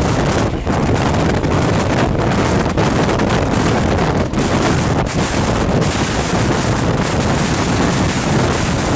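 Loud steady rush of wind and wheel-on-rail noise from a fast-moving train, with wind buffeting the microphone at the open door. An electric suburban local train passes close by on the next track in the first seconds.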